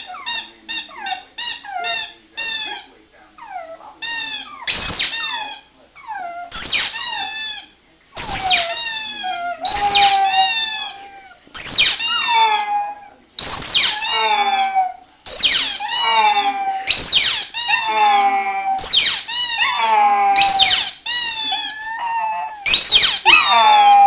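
Pug howling and whining, a string of high-pitched cries that each fall in pitch: short quick whines in the first few seconds, then longer drawn-out howls about every one to two seconds. She is begging for a toy kept from her.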